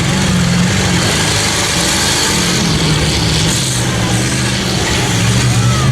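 Grain truck engines running hard as the trucks race round the track: a steady low drone that wavers slightly in pitch, with a broad rushing noise over it.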